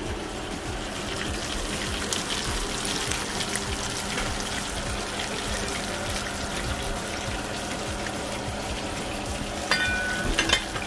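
Breaded grouper fillets frying in a skillet of hot oil: a steady sizzle full of small crackles and pops. A short ringing tone sounds near the end.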